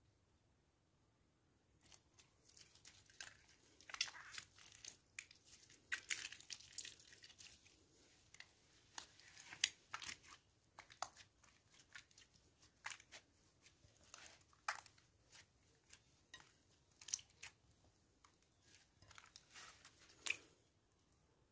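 Glittery pink slime being stretched, squeezed and pressed by hand, giving irregular sticky pops and crackles that start about two seconds in.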